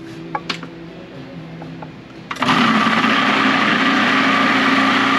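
Food processor blending a tofu quiche filling: a few light clicks, then about two and a half seconds in the motor starts suddenly and runs loud and steady.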